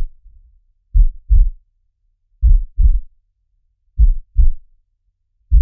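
Heartbeat sound effect: deep lub-dub double thumps, four pairs, one about every second and a half.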